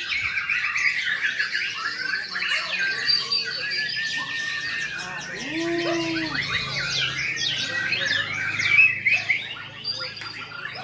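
Several white-rumped shamas (murai batu) singing hard at once: dense, overlapping rapid whistles, trills and chattering phrases. A short low arched note sounds near the middle.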